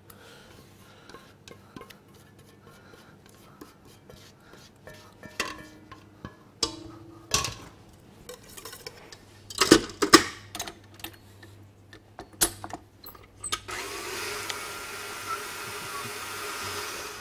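Wire whisk and utensils clinking and knocking irregularly against a stainless steel bowl, with a few louder clanks around the middle. About fourteen seconds in, a KitchenAid stand mixer runs steadily with a thin whine, then stops.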